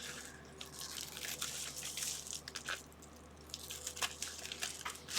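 Faint handling of plastic packaging and a small plastic holder: scattered light clicks and crinkles, irregular and brief, over a low steady hum.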